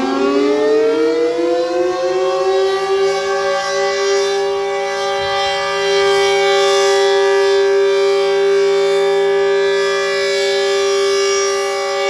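Super Sirex outdoor warning siren winding up. Its pitch rises for the first few seconds, then it holds a steady, loud wail with slow swells and dips in loudness.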